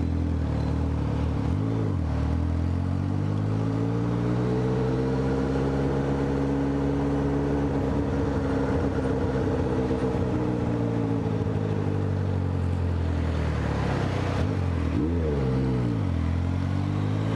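Honda CB650F's inline-four engine under way: the revs climb steadily for a few seconds, hold, then fall away. About fifteen seconds in they dip and recover quickly, then start to climb again.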